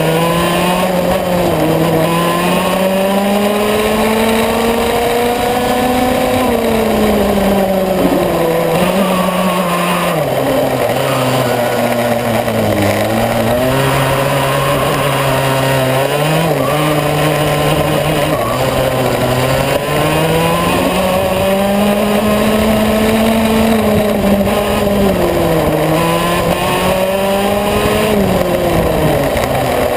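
Yamaha KT100S 100cc single-cylinder two-stroke kart engine at racing speed, heard onboard. Its pitch climbs for several seconds, falls to a low note about a third of the way through and stays low for a while, then climbs again and dips twice near the end. With no gearbox, the revs rise on the straights and drop through the corners.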